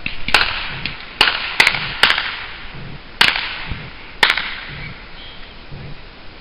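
Fireworks going off: about six sharp cracks at uneven intervals, each dying away over a fraction of a second, before it goes quieter near the end.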